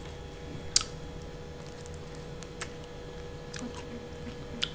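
Small mouth clicks and smacks of people eating ice lollies, four short sharp ones spread through, over a faint steady hum in a small room.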